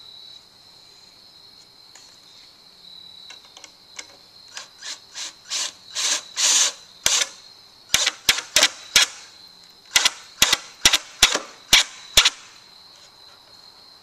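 Cordless drill driving a screw at an angle through a 2x4 to toenail it. It runs in short bursts that grow louder, then gives a series of sharp clicks, about two or three a second, as the screw is pulled tight.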